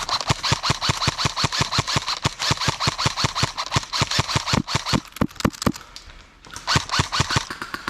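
Airsoft rifle firing rapid full-auto strings of about eight to ten shots a second, a sharp click with a low thud on each shot, breaking off briefly near the end and then starting again.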